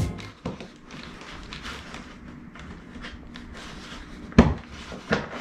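Hands working behind a car's plastic front bumper cover to fit a fog light: uneven rubbing and handling noise, with a sharp knock about four seconds in and a smaller one shortly after.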